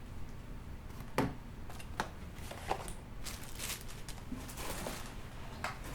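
Hands handling plastic parts and packaging: a few sharp clicks and knocks, then a stretch of rustling.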